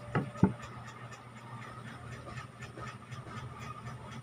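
Close-up eating sounds while eating rice by hand: two loud mouth sounds just after the start, then quieter chewing ticks over a steady low hum.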